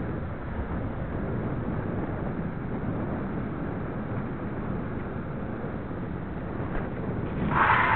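Wind buffeting the microphone of a bicycle-mounted camera, with steady low rumble from the bike rolling on asphalt. Near the end there is a brief, louder hissing burst.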